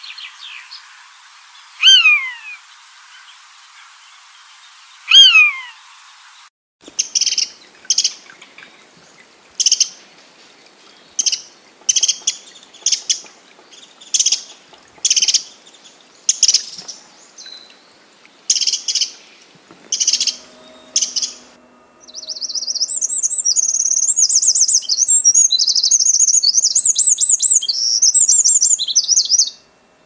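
Bird calls in three stretches: two single descending calls in the first few seconds; then a Eurasian nuthatch giving short, sharp calls repeated about once a second for some fifteen seconds; then, from about 22 seconds in, a fast continuous warbling song that stops suddenly at the end.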